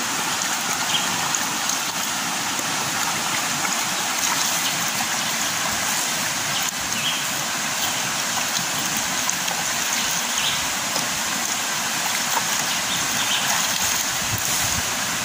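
River water rushing steadily, with a few faint short ticks over it.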